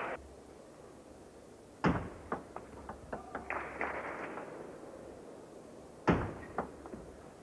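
Sharp knocks of a celluloid table tennis ball against bats and the table. A loud hit about two seconds in is followed by a run of lighter ball clicks, and another loud hit about six seconds in starts more quick knocks.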